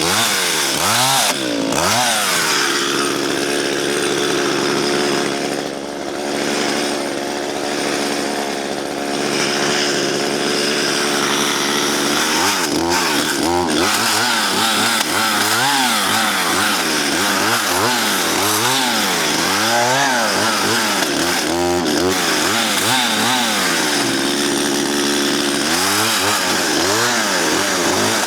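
Two-stroke chainsaw cutting a fallen dead spruce into logs. It holds a steady speed for several seconds, then is revved up and down over and over. The chain is dull and struggles through the wood.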